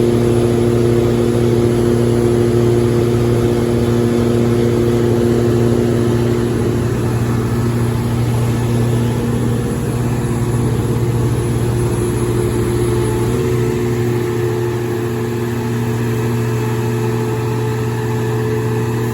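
A 400 kW Cummins/Onan diesel generator running steadily at constant speed, with a strong low hum. About two-thirds of the way through, its tone shifts slightly as the deepest rumble drops away.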